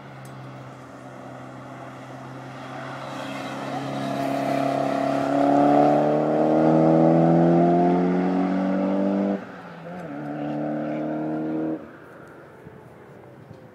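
A car on a race track accelerating past, its engine note climbing and getting louder. There is a short break in the note about nine and a half seconds in, then it pulls steadily again before cutting off abruptly about twelve seconds in.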